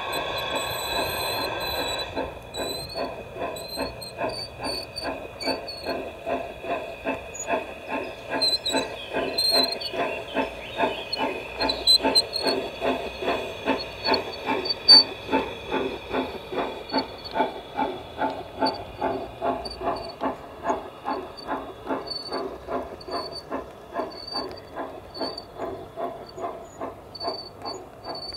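Homemade live-steam model of the Mh.6 locomotive hissing steam at first, then chuffing past in an even beat of about two exhaust strokes a second. A light squeak comes from the tender, which needs a few drops of oil.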